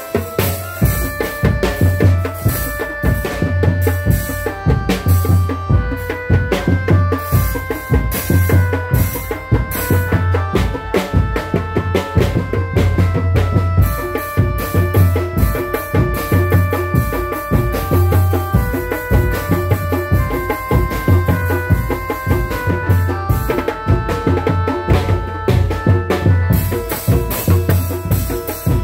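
Loud East Javanese folk music for a tiger-costume dance: drums beat deep, repeating pulses under a melody of held notes that step up and down.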